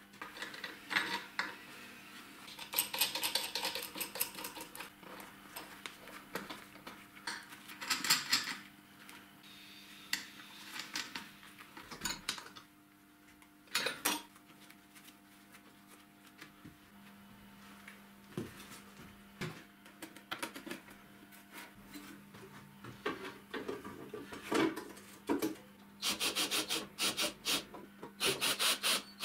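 Hand-tool work on a homemade band saw's steel frame: metal parts clicking, scraping and rubbing as screws and a threaded tensioning rod are turned. The sound comes in irregular bursts of fast clicks, the busiest stretch near the end, over a faint steady hum.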